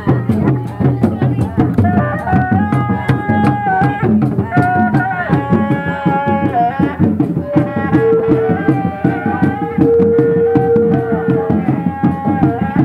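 Sundanese reak procession music played live: fast, dense drumming throughout, with a melody of long held notes that slide at their ends joining about two seconds in.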